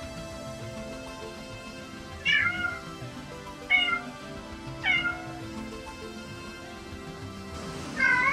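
Domestic cat meowing four times, short calls spaced one to three seconds apart, the last one near the end.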